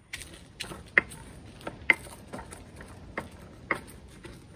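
Stone pestle (tejolote) pounding and grinding in a volcanic-stone molcajete, crushing toasted dried chiles de árbol, garlic and salt. Irregular sharp knocks of stone on stone, about two a second, with gritty grinding between.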